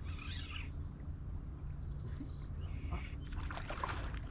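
A steady low rumble with short, high bird chirps, and a quick run of rapid clicks a little past three seconds in.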